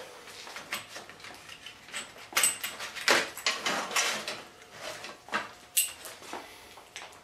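Sockets and small hand tools clinking and rattling against each other and a metal socket-set tray as a socket and extension are picked out and fitted together: a string of sharp metallic clicks, some with a brief ring.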